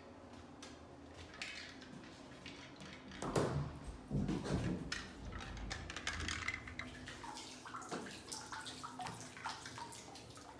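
Thumps of handling a bit over three seconds in, then water splashing and dripping in a float pod as a hand stirs it, in many short irregular splashes.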